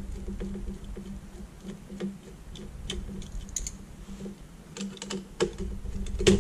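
Light, irregular clicks and taps of a screwdriver and small screws on a metal LCD chassis as the screws holding the backlight inverter board are backed out, with one sharper click near the end. A low steady hum runs underneath.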